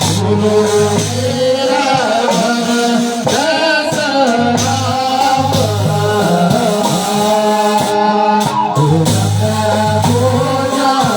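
Himachali folk song: a singer's voice carrying the melody over instrumental accompaniment with held bass notes.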